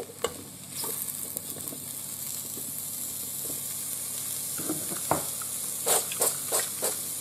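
Sliced mushrooms sizzling in olive oil in a multicooker's nonstick pot on the sauté setting; the sizzle picks up about a second in. A few short taps and scrapes against the pot come near the end.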